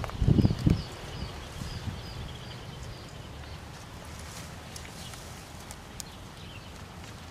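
A few low thumps in the first second from footsteps and handling of a handheld camera, then outdoor background with a small bird chirping about twice a second for the first couple of seconds.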